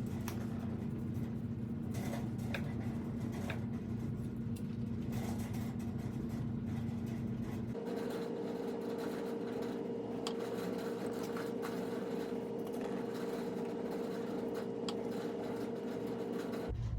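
A steady machine hum that shifts to a higher pitch about eight seconds in, with faint light clicks and taps over it.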